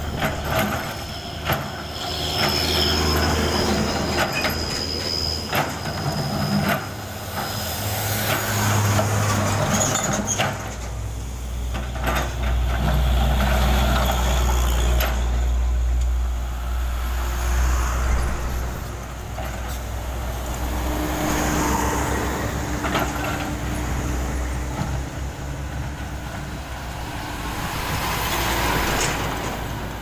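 Komatsu PC200 diesel hydraulic excavator running as its bucket scrapes and knocks on broken asphalt, with sharp clanks scattered through. Heavy trucks pass on the road alongside, and a deep rumble swells in the middle.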